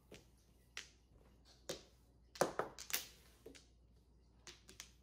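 Mahjong tiles clacking as they are drawn, discarded and set down on the table: scattered sharp clicks, the loudest about two and a half to three seconds in.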